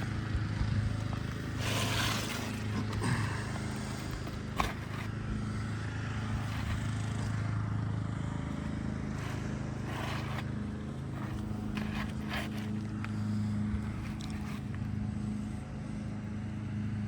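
A steady low hum throughout, with scattered scrapes and knocks from asphalt shingles being handled and fitted on a roof, including a sharp knock about four and a half seconds in.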